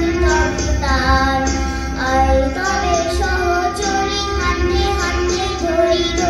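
A song: a high voice sings a melody over steady held accompaniment notes and a low beat.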